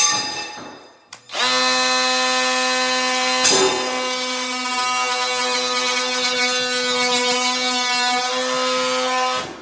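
Oscillating multi-tool starting up about a second in and running at a steady pitch with a rasping cut as it scores a line all the way around the old stop valve's fitting, stopping just before the end. A sharp click rings out at the very start.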